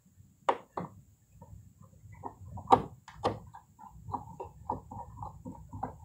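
Flat-blade screwdriver driving the screw of a plastic switch cover plate into a plastic electrical box: a few sharp clicks, then from about halfway a quick run of short squeaks, about four a second, as the screw is turned.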